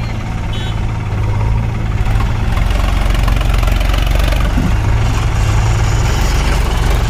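Sonalika DI 47 RX tractor's three-cylinder diesel engine running, with a backhoe loader's diesel engine running alongside. About two seconds in the engine grows louder and stays up as the tractor moves off pulling a fully loaded trolley.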